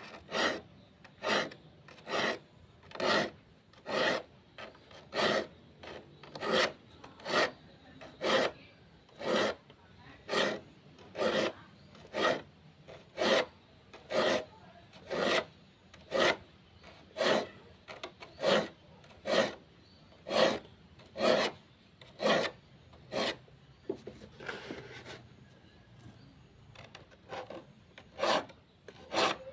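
Steel file rasping across the teeth of a handsaw to sharpen it, in even separate strokes about one a second, with a short break about three quarters of the way in.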